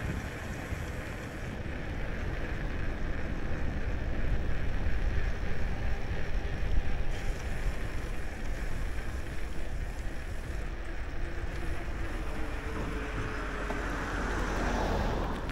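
Wind on the built-in microphone of a DJI Action 3 action camera riding on a moving bicycle: a heavy low rumble under a steady rush of air that swells and eases.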